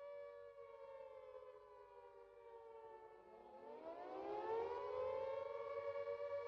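Carter air-raid siren wailing with a two-note chord: the pitch slides down, dips about three seconds in, then winds back up and gets louder.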